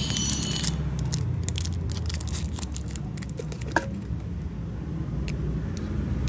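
A steady low rumble underneath light clicks and crackles of a boxed Zippo lighter and its packaging being handled. The clicks come thickest in the first three seconds.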